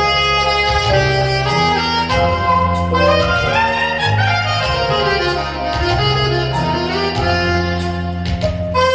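Music: instruments play a melody over a stepping bass line, with a quick run that climbs and then comes back down about halfway through.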